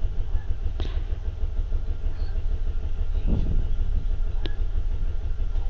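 Steady low rumble of background noise, with a couple of faint clicks.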